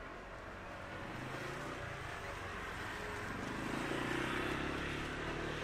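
A motor vehicle's engine running close by with a steady low hum, growing louder until about four seconds in and then easing slightly.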